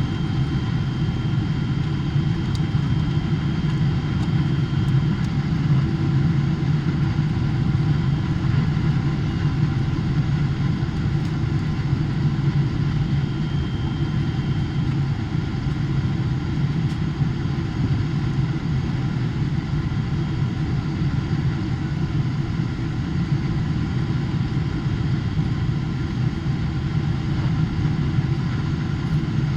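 Steady cabin noise inside a Boeing 777-300ER airliner on approach: a low, even drone of airflow and its GE90 engines, with faint steady whining tones above it.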